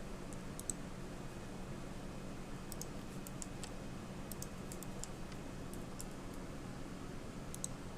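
Faint clicks of a computer mouse and keyboard being worked, a few single clicks and several quick clusters, over a steady low electrical hum.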